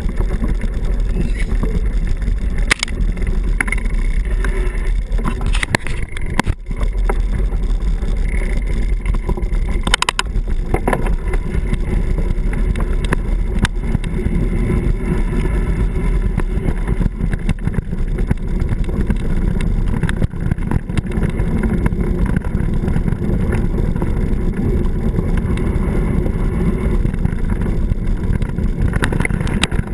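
Steady wind rumble on the microphone and the rolling noise of a mountain bike going fast over a gravel trail, with scattered knocks and rattles from bumps.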